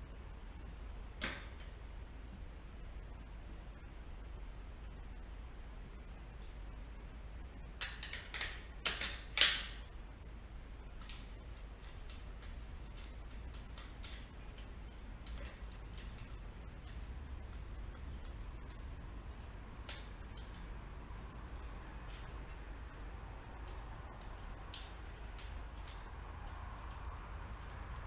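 A cricket chirping steadily in a high, evenly repeating pattern, several chirps a second, with a few sharp clicks and knocks over it, the loudest being a quick cluster about nine seconds in.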